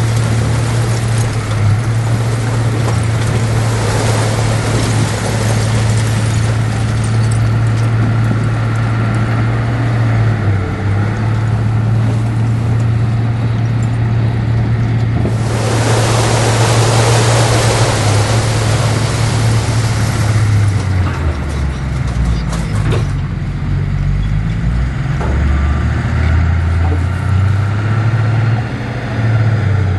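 Heavy diesel engine of earthmoving machinery running steadily, its pitch shifting up and down in the later part. A loud hiss rises about halfway and lasts roughly five seconds.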